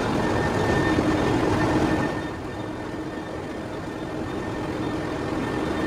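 Machine tool running in a machine shop, a steady mechanical din with a constant hum, easing down in level about two seconds in.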